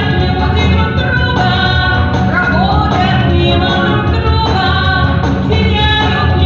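Music: a song played over a steady backing track, with a melody line sung over it.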